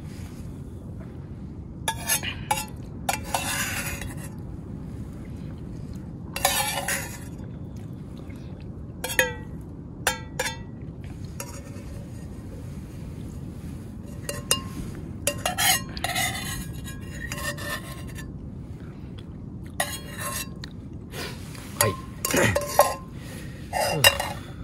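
A person slurping and gulping soup straight from an aluminium camping pot, in short bursts every second or two with light metallic clinks of the pot, over a steady low background noise.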